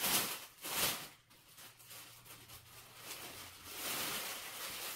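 Clear plastic packaging crinkling as a folded cloth suit is handled and pulled out of its bag: two short crinkles in the first second, then a longer rustle near the end.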